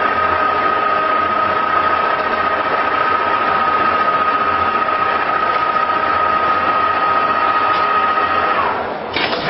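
A small motor running steadily with a constant high whine that drops in pitch near the end, then breaks off into clattering.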